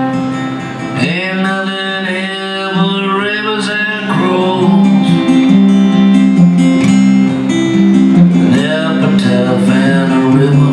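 Live acoustic country music: a fiddle playing a melody over two strummed acoustic guitars.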